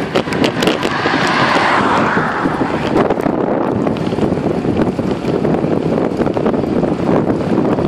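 Wind rushing over the microphone of a handlebar-mounted phone on a moving bicycle, a steady loud noise. A car passes in the opposite lane about one to two seconds in.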